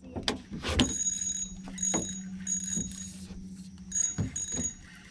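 Spinning reel's drag buzzing in several short spurts as a hooked redfish pulls line, with a few knocks mixed in.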